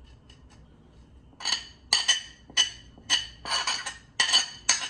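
A metal spoon clinking and scraping against a glazed ceramic plate, about ten quick ringing clinks after the first second and a half, as the last bread crumbs are knocked off the plate into the pan.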